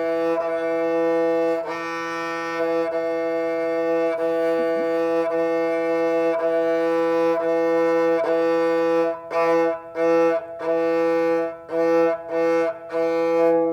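Kamancheh open strings bowed in long, alternating pull and push strokes, a sustained tone with a brief break at each bow change. In the last few seconds the strokes become short and detached, with gaps between them.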